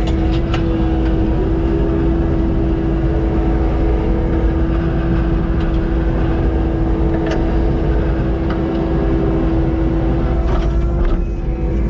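Kubota SVL90-2 compact track loader's diesel engine running steadily under load, driving a Harley power rake, with a steady hum over a low rumble and a few sharp clicks.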